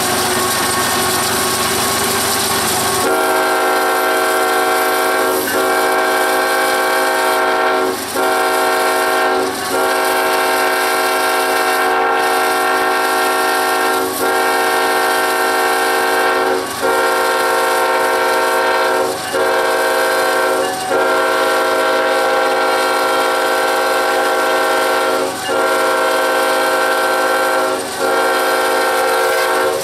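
Kansas City Southern locomotive's Nathan K5-type five-chime air horn sounding a long string of blasts, each broken off by only a brief gap. It comes in sharply about three seconds in, over a steady noisy rumble.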